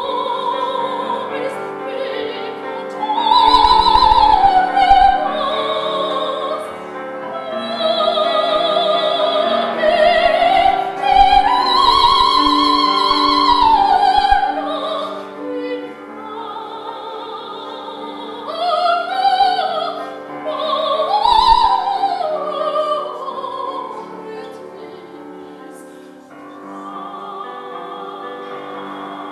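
Female opera singer singing with strong vibrato, accompanied by a grand piano. Her voice swells to long held high notes in the middle and grows quieter toward the end.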